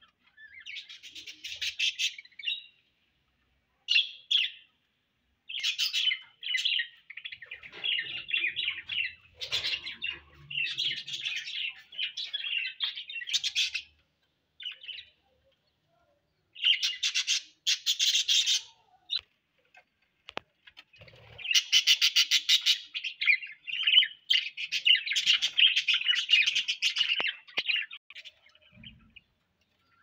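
Several budgerigars chirping and chattering together in bursts of a few seconds, broken by short quiet gaps.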